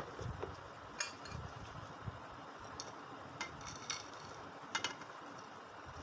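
Light glass clinks and ticks, about six, as semolina churi with nuts is tipped from a glass bowl onto a glass serving plate; the sharpest comes about a second in and a quick pair near the end. A steady faint hiss lies underneath.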